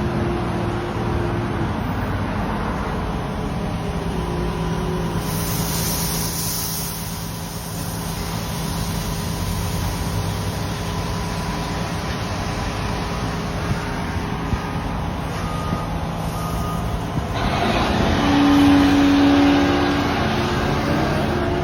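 Heavy construction machinery engine running steadily with a continuous drone. Near the end a loud steady tone sounds for about two seconds.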